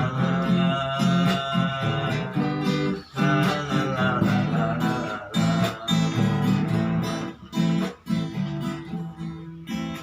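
Acoustic guitar strumming chords in an instrumental passage after the sung lines, with the playing thinning and getting quieter near the end.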